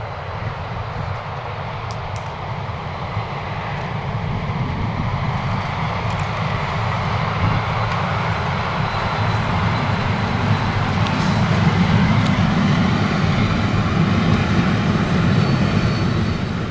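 Former ÖBB class 2143 diesel-hydraulic locomotive working under load as it hauls a passenger train past, a deep engine rumble that grows louder as it approaches, loudest about twelve seconds in.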